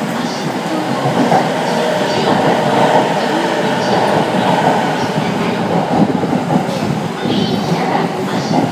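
Yokosuka Line E217-series electric train running into the platform and slowing as its cars pass close by, with steady, loud wheel-on-rail noise.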